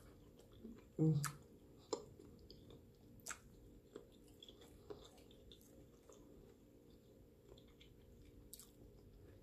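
Close-up chewing of a garlic shrimp dipped in creamy Alfredo sauce, mouth closed: soft wet smacks and small mouth clicks at irregular intervals, fairly faint, with a slightly louder smack about a second in.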